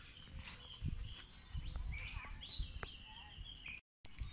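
Birds chirping and twittering in quiet outdoor surroundings, with a few light clicks; the sound drops out briefly near the end.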